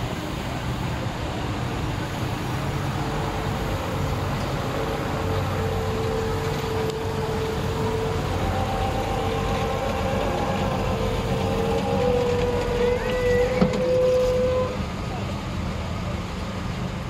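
Vintage military lorry driving slowly past, its engine running with a steady low rumble. A long high whine rides over it, steps up slightly about twelve seconds in and stops near fifteen seconds. A single sharp click comes shortly before the whine ends.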